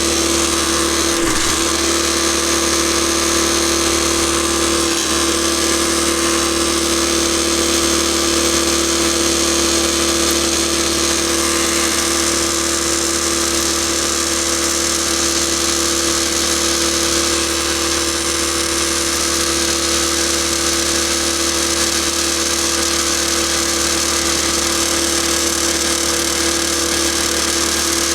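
Backcountry Tornado F2 electric non-air drywasher running during its clean-out cycle: a steady motor hum with one constant tone over an even hiss.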